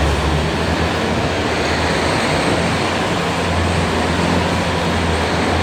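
Bobcat T590 compact track loader's diesel engine running steadily, a loud low drone with broad mechanical noise over it.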